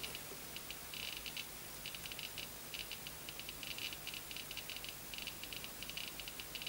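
Geiger counter with a Soviet STS tube clicking fast and irregularly, each click a detected particle. The high count rate comes from a radioactive vintage item measured through a lead shield.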